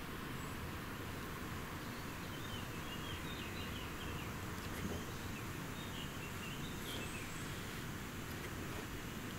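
Steady outdoor ambience: an even background hiss, with faint bird chirps about two seconds in and again around the seventh second.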